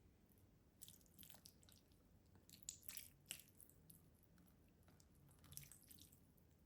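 Faint wet chewing and mouth smacks from eating rice and meat, in three short clusters of sharp clicks, the last near the end.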